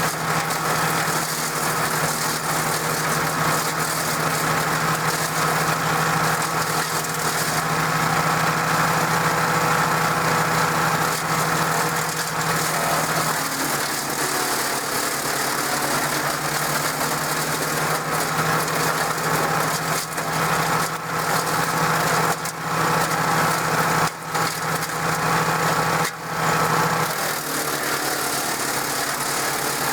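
DR self-feeding wood chipper's Briggs & Stratton engine running steadily, driving the chipper flywheel. The engine note shifts about halfway through and again near the end, with a few brief dips in level in between.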